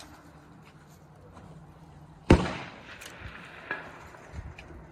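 A single loud precision-rifle shot about two seconds in, a sharp crack whose report trails off over a fraction of a second.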